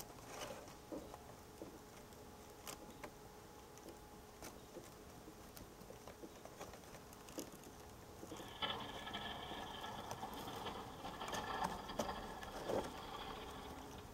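Faint, distant pickup truck engine working a snow plow, with scattered small clicks; about eight and a half seconds in, a steadier whine grows louder for a few seconds, then falls away.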